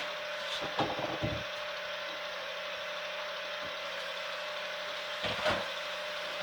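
Electric ice cream maker running steadily as its paddle churns the ice cream, a constant mechanical hum with a gear-like whir. A few short knocks about a second in and twice more near five and a half seconds.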